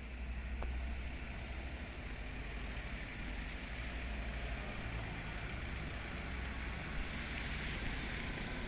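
MAN turntable-ladder fire engine approaching slowly on a wet road: its diesel engine gives a steady low hum under the hiss of the tyres, with no siren sounding.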